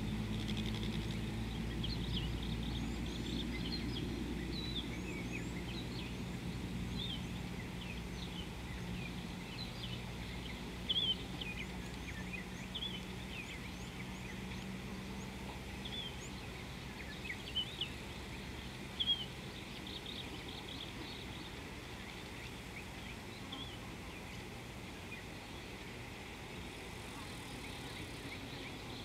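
Many small birds chirping and calling in bushland, short high chirps and quick glides, a few louder ones near the middle. A low steady hum sits beneath them and fades out over the first half.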